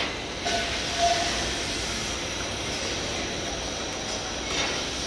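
Conveyor-belt rice cracker fryer running: a steady hiss of hot oil frying the rice slabs together with the noise of the moving metal mesh belt, with a brief knock about half a second in and another near the end.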